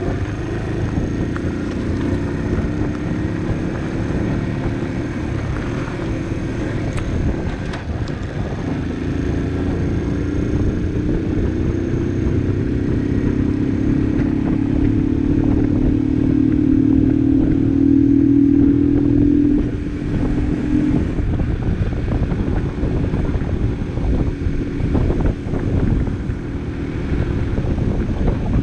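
Barton Volcano 50cc moped engine running under way. Its note climbs slowly for about ten seconds, drops off about two-thirds of the way through and picks up again near the end, over steady road and wind noise.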